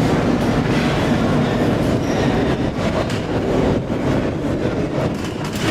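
Loud, steady rumbling roar of heavy ocean surf, with wind buffeting the microphone.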